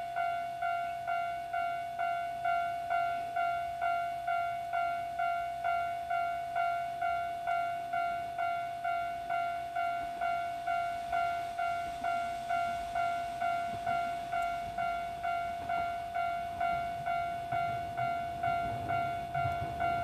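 Japanese railway level-crossing warning bell ringing its standard electronic tone, a steady ding repeating about twice a second, signalling an approaching train. Over the second half a train's low rumble grows in underneath and is loudest near the end.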